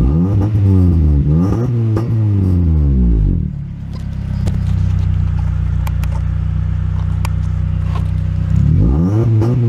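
Honda Prelude's H22A four-cylinder DOHC VTEC engine revved up and down several times in quick succession, settling to a steady idle, then revved again near the end.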